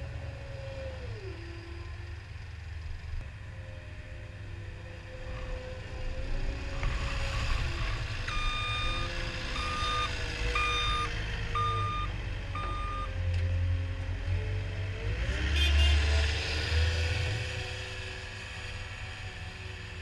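CAT 262D skid steer's diesel engine running under load, with a steady whine that drops in pitch about a second in. Its back-up alarm beeps five times, about once a second, while it reverses. The engine then surges louder for a couple of seconds before settling.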